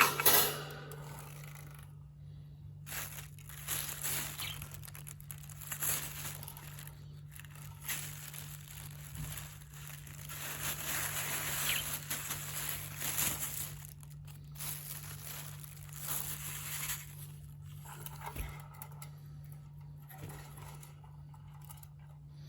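Lovebirds eating seed: an irregular crackle of small crunches and clicks from beaks cracking and husking seeds, over a steady low hum.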